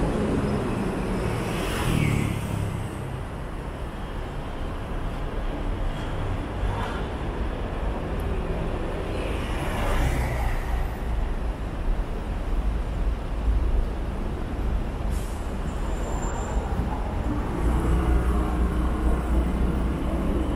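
Busy city-street traffic: a steady low rumble of engines and tyres, with vehicles swelling past about two and ten seconds in, and a short hiss about fifteen seconds in.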